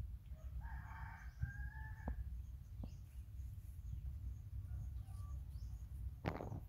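A rooster crowing once, a held call about a second and a half long, over a steady low rumble. A short sharp crackle comes near the end.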